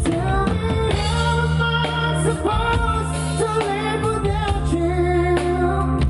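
Live band playing a song: a lead singer's voice over electric guitars, keyboard, bass and drum kit, played through a PA system.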